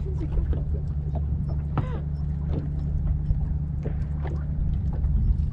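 A bass boat afloat with a steady low hum and light, irregular knocks of water against the hull.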